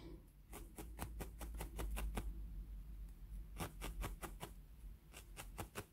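A fine 40-gauge spiral felting needle stabbing repeatedly into wool, a run of faint soft ticks several a second with a short lull about midway. The needle is driving the edge of the red nose fibres at an angle into the felted base to round and attach it.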